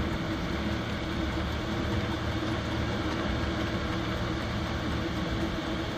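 Chinese 5 kW diesel air heater running at full output: a steady drone from its combustion blower and burner, with a faint steady whine over a low rumble.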